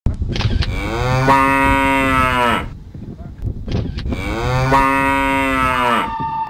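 Two long mooing calls from a large animal, a few seconds apart, each rising at the start, held, then falling away.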